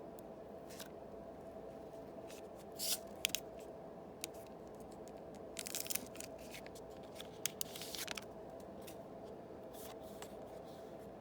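Yu-Gi-Oh! trading card booster packs being opened and the cards handled: short bursts of wrapper crinkling, cutting or tearing and light clicks, the loudest about three, six and eight seconds in, over a steady low hum.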